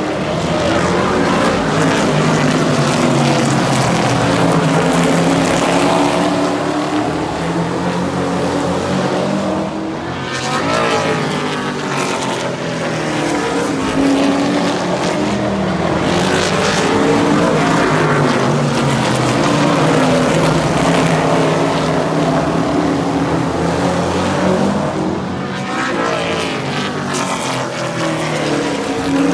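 Super truck race engines running hard at full throttle around a short oval, cars sweeping past several times with the pitch dropping as each goes by.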